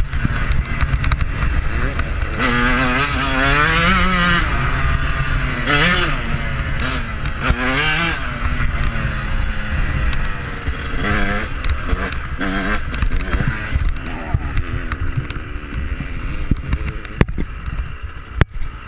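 Yamaha YZ125 125cc two-stroke single revving hard and falling off again and again as the bike rides, with heavy wind buffeting on the microphone. The engine fades away after about fourteen seconds, and a few sharp knocks come near the end.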